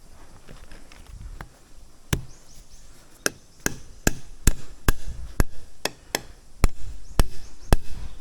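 Repeated chopping strikes on wood, about two sharp blows a second, beginning about two seconds in.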